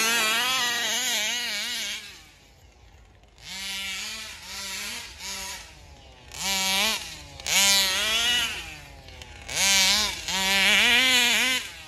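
Taylor RC (RCMAX) 40GT 40cc two-stroke engine in an RC buggy, driven hard in repeated throttle bursts. There is a long run at first, then a lull, then about six short bursts, each revving up in pitch before dropping back.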